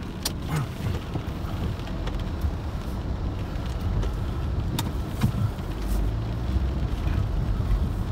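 Car engine and tyre rumble heard from inside the cabin while driving slowly, with a few light clicks.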